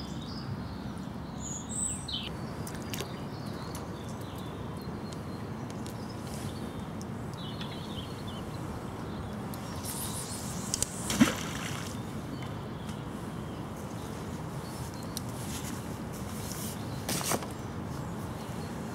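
Steady rush of flowing river water, with faint bird chirps in the first few seconds. There is a sharp knock about halfway through and a smaller one near the end.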